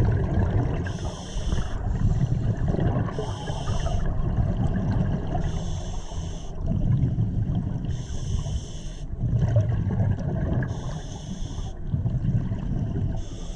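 A scuba diver's regulator underwater: a hiss of breath drawn through the regulator about every two and a half seconds, with bubbling exhalations between them, over a low rumble of water.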